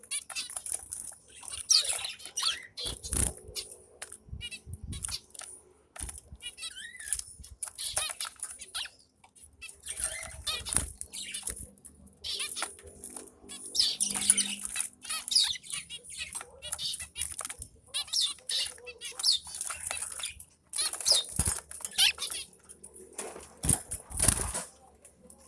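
Zebra finches calling in many short, high chirps, with several low thumps and flutters of wings among them.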